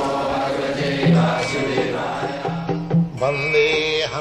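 Intro music in an Indian classical style: repeated low drum strokes, like tabla, under held and plucked pitched notes.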